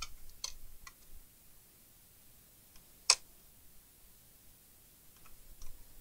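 Scattered small clicks of a screwdriver against the screws and sheet-metal chassis of an all-in-one computer being taken apart: a few at the start, one sharper click about three seconds in, and faint ticks near the end.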